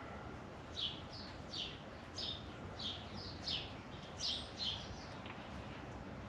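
A bird calling: a series of about nine short, high chirps, each sliding downward, roughly one every half second, over steady low background noise.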